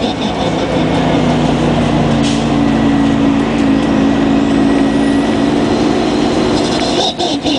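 Detroit Diesel Series 50G natural-gas engine of a 1999 Orion V CNG transit bus running with a steady drone, dipping briefly about seven seconds in.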